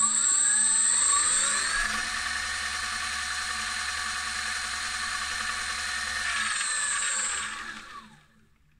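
Mini lathe driven by an SK3 6374-149KV brushless outrunner motor on a SkyWalker 40A speed controller: the motor's whine rises in pitch as the spindle speeds up over the first two seconds, runs steady, then falls away and stops about eight seconds in. A thin high whine sits over the motor sound while it runs.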